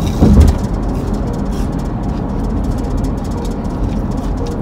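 A car driving: a steady low rumble of engine and road noise, with one short thump just after the start.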